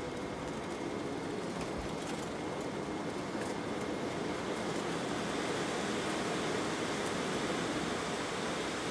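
Steady rushing cabin noise of an MD-90 airliner climbing just after takeoff, heard from the first-class cabin: mostly airflow, with the rear-mounted engines kept quiet up front. It swells a little about halfway through.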